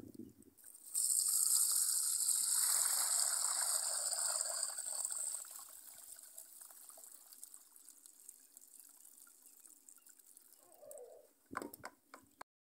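Water poured from a basin of cracked pigeon peas through a wooden-framed mesh sieve into a plastic basin: a gush starting about a second in, which dies down after about five seconds to a faint trickle. It is the rinse water carrying off the loosened seed coats.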